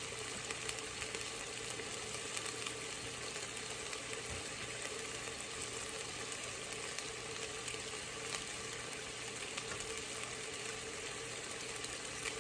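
Garlic-ginger paste frying in oil in a clay pot: a steady soft sizzle with scattered small crackles and a faint steady hum under it.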